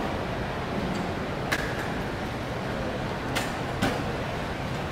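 Steady background noise of a large airport terminal hall, with three sharp clicks: one about a second and a half in and two close together a little past three seconds.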